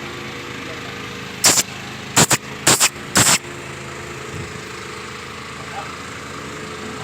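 A machine's motor running steadily, with four short, loud hissing bursts between about one and a half and three and a half seconds in.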